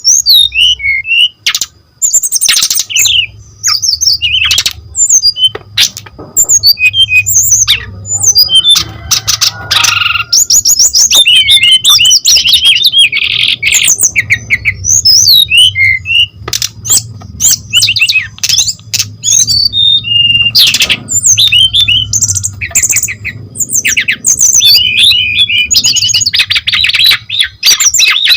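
Brown-chested jungle flycatcher (sikatan rimba dada coklat) singing in full voice: a loud, rapid, varied run of chirps, trills and harsh notes with only brief breaks.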